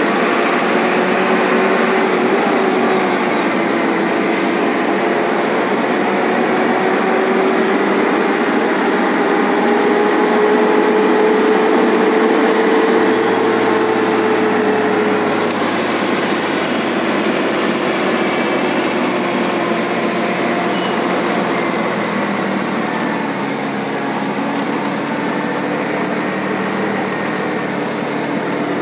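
Truck's diesel engine running steadily under way, heard from inside the cab. Its note rises slowly for about the first twelve seconds, then drops back and settles lower.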